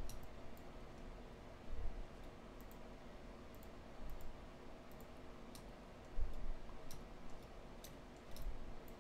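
Irregular light clicks of a computer mouse and keyboard, with four soft low thumps spread through.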